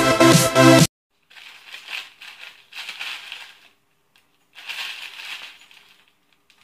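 Electronic dance music that cuts off abruptly about a second in, followed by the crinkling of a plastic instant-ramen packet being handled in two irregular stretches.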